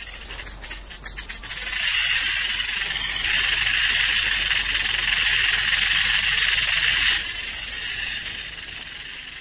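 Rattlesnake shaking its rattle in warning: a few dry clicks, then from about a second and a half in a steady high buzz of loose interlocking rattle segments. The buzz gets louder about three seconds in and dies down over the last two seconds.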